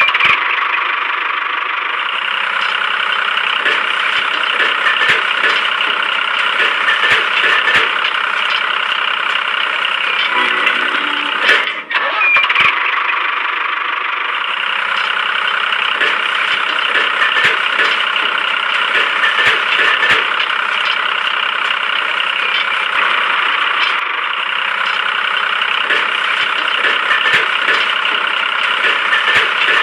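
Motor or engine running steadily with a rattly, ticking texture. It breaks off for a moment about twelve seconds in, then carries on the same way.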